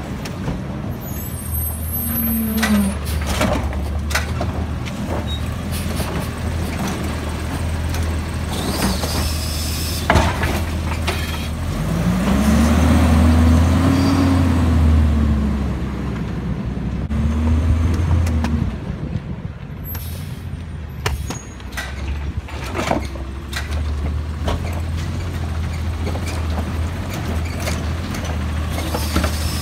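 Automated side-loader garbage truck running at low speed, its engine revving up and easing off several times as it moves between carts, with air-brake hiss and scattered clanks. Near the end its hydraulic arm lifts a recycling cart and tips it into the hopper.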